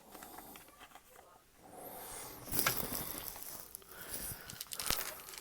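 Rustling and crinkling of Pokémon card booster packs and cards being handled, starting about a second and a half in, with a few sharp clicks.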